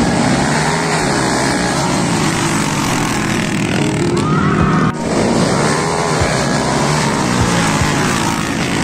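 Underbone motorcycle engines revving hard in a dirt-track race, loud and continuous, with a sudden break about five seconds in.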